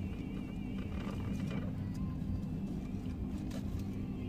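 Steady low hum of a car idling, heard from inside the cabin, with faint music that wavers in pitch during the first second or so and a few light clicks and taps.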